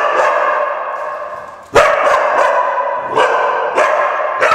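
Dogs barking in shelter kennel runs: about five sharp barks, each followed by a long echo off hard walls.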